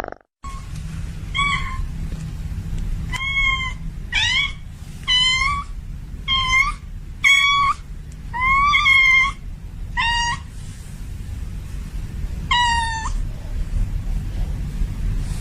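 A female cat in heat calling with repeated meows, about ten short calls that each bend up and down in pitch, spaced irregularly, over a steady low rumble.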